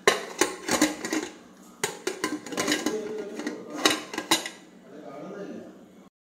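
Stainless steel pressure cooker lid being handled and fitted onto the pot: a run of metal clinks and knocks, a dozen or so in the first four and a half seconds, then quieter handling.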